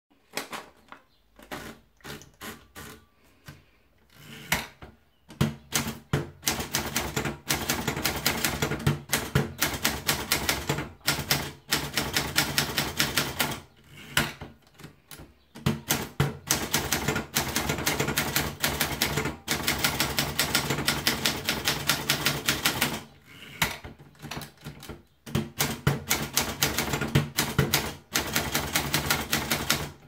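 Alpina manual portable typewriter: a few scattered clicks while a sheet of paper is fed in, then fast typing. Key strikes come in quick runs broken by short pauses as the working machine is test-typed.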